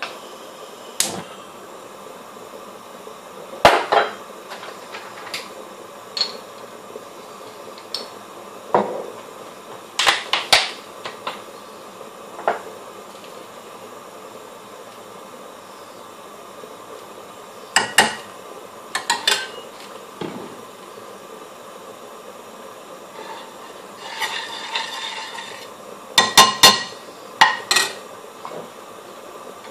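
Metal kitchen utensils clinking and knocking against pans and containers on the hob in short, irregular clusters, the loudest clinks near the end as a metal chef's spoon is set into an aluminium frying pan. A low steady hiss sits underneath.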